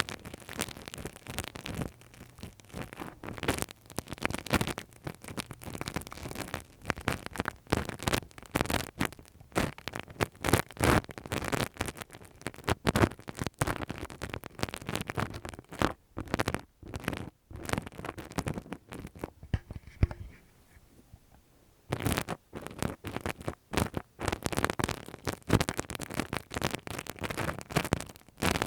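Close-up ASMR ear-cleaning sounds: quick, irregular scratching and scraping strokes against the microphone, pausing for about two seconds past the middle.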